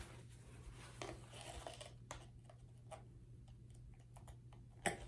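Quiet handling of plastic paint bottles and a plastic cup by gloved hands: scattered soft clicks and rustles, with one sharper click near the end, over a low steady hum.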